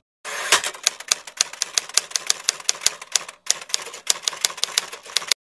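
Typewriter-style typing sound effect: rapid, irregular key clacks, several a second, with a brief pause a little past halfway, stopping abruptly near the end.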